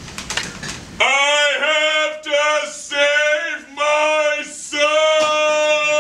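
A single voice singing a short melody in long held notes, starting abruptly about a second in and broken into a few phrases.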